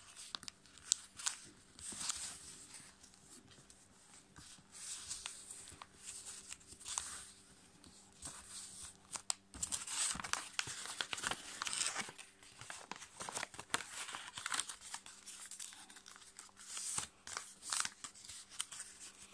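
A sheet of A5 copy paper being folded by hand into a paper airplane: intermittent rustling and crinkling with short crisp clicks as folds are pressed and creased, busiest about halfway through and again near the end.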